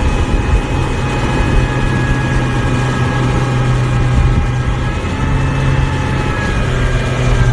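Motorboat's engine running steadily at cruising speed as the boat planes across the water, a steady hum with wind buffeting the microphone.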